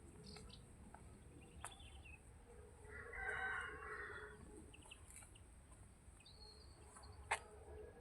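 A rooster crowing once, faintly, about three seconds in, with a few small bird chirps around it. A single sharp click comes near the end.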